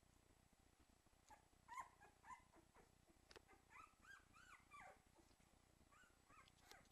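Cairn terrier puppy whimpering faintly: a run of short, high, squeaky whines that each rise and fall, a pause, then a few more near the end.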